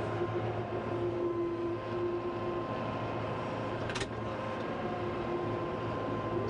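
Kubota M5-091 tractor's diesel engine running steadily, heard from inside the closed cab as a constant low drone with a steady hum, with a single sharp click about four seconds in.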